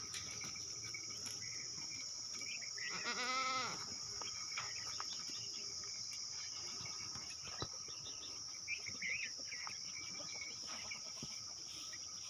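A goat gives one long, wavering bleat about three seconds in, over a steady high drone of insects.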